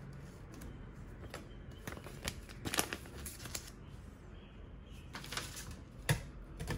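Paper leaflet rustling and crinkling as it is flipped and folded in the hand, in irregular bursts, with one sharp tap near the end.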